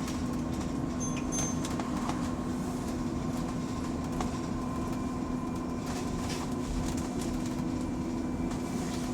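Electric bus in motion, heard from inside the cabin: road rumble with a steady droning tone. This is the odd noise the bus makes when rolling without the accelerator pressed, which the passenger finds concerning. A brief high tone sounds about a second in.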